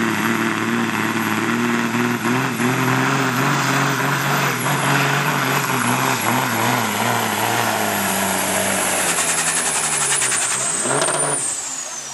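Diesel semi-truck engine at full throttle under heavy load, pulling a weight sled, with a high turbo whine over the engine note. Near the end the engine lugs down into separate pulses, and the whine drops steeply in pitch as the turbo spools down.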